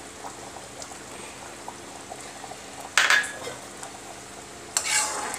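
Thick creamy curry gravy simmering in a steel kadhai, with a metal ladle stirring it and scraping the pan once sharply about three seconds in and again near the end.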